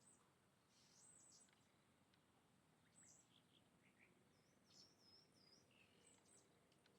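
Faint, scattered bird chirps: short high calls about a second in and around three seconds, then a quick run of chip notes near the middle.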